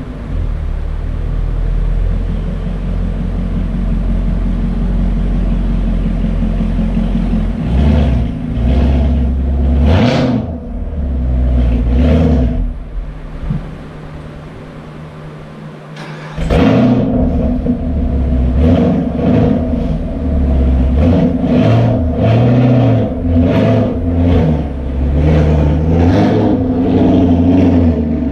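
A 2017 Chevrolet Camaro SS's 6.2-litre V8 running as the car is manoeuvred at low speed, with a quieter stretch in the middle and a sudden rise in level about 16 seconds in.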